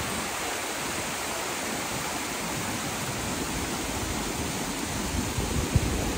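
Steady rushing hiss, even and unchanging, with a few faint low knocks near the end.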